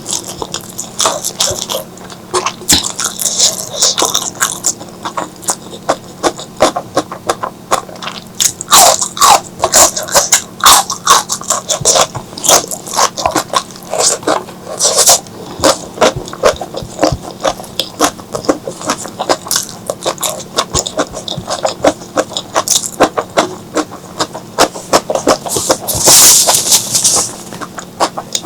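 Close-miked eating sounds: steady wet chewing, lip smacks and mouth clicks of someone eating spicy seafood curry, with louder bursts of chewing and a short slurp near the end.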